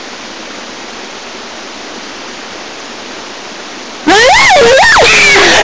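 A steady hiss, then about four seconds in a girl's voice starts making loud, wordless, high noises that swoop up and down in pitch.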